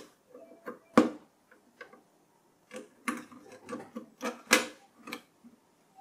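Clicks and knocks of a desktop CPU being seated in its LGA1151 motherboard socket, with the socket's metal load plate lowered and the retention lever latched. One sharp click comes about a second in, then a run of clicks and taps between about three and five seconds.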